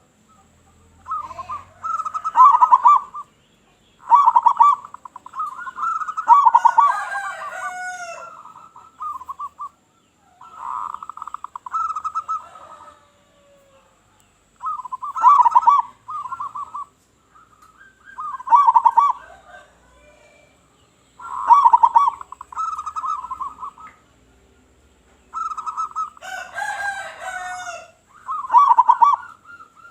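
Zebra dove (local perkutut) cooing: repeated rapid, trilling coo phrases every few seconds. Higher chirping notes come in twice, about a third of the way in and near the end.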